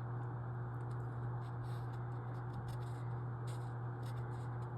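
Steady low hum, with faint, scattered short ticks and scratches over it.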